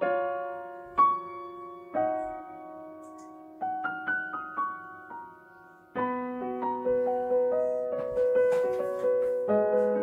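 Solo piano music: slow, spaced notes each left to ring and fade, turning to a quicker, flowing run of notes about six seconds in.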